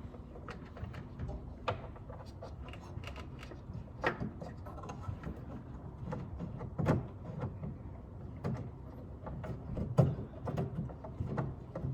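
Scattered clicks and knocks of hands working an LED headlight bulb into the back of a car's headlight housing, twisting it into place and handling its plastic parts and plug.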